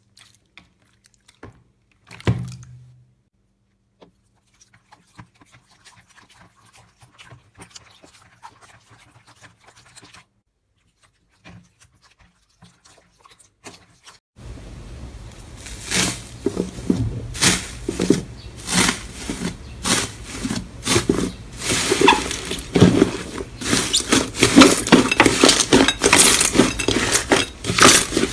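Slime being squished and poked by hand. The first half has a few faint clicks and a single soft thump, then about halfway in a dense run of loud crackling and popping sets in.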